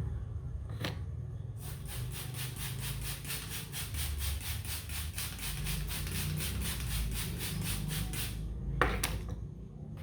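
Hands vigorously rubbing the hair and scalp in a fast back-and-forth head massage, a brisk rustling stroke about six times a second, starting a little under two seconds in and stopping near the end. Just after the rubbing stops, one sharp, loud sound with a quick upward squeak.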